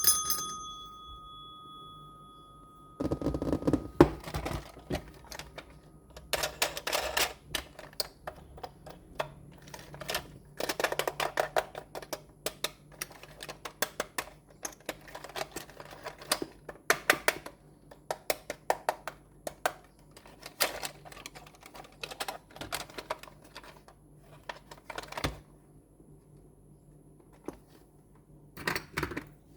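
Hands unboxing a toy RC car: irregular runs of clicks, taps and rustles from the cardboard box and plastic packaging, coming in clusters with short pauses between them. A faint steady high tone sounds under the first few seconds.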